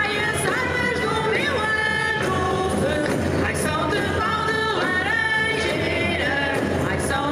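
Portuguese folk singing group singing a traditional Beira Baixa song, lines led by a lead singer and repeated by the group. The voices hold long notes and slide up into them.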